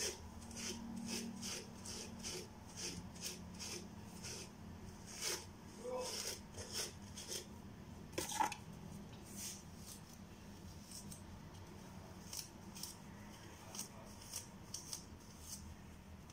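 Detangling brush being pulled through thick, coily natural hair: a quiet, irregular run of short brushing strokes, two or three a second, thinning out in the second half.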